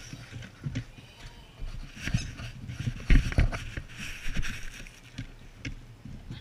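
English setter puppies nosing and licking at a peanut-buttered GoPro close up, with irregular bumps and knocks against the camera.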